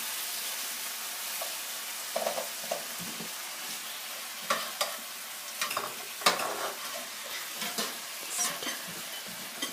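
Broccoli and carrots sizzling in a hot pan with oil, garlic and oyster sauce, stirred with a utensil that scrapes and clicks against the pan now and then.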